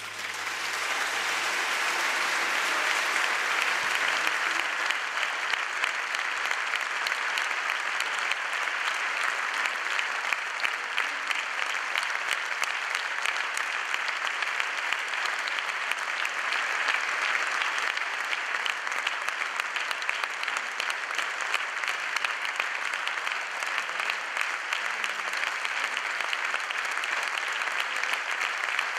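Concert hall audience applauding: the clapping swells within the first couple of seconds as the last low note of the music dies away, then keeps up steadily.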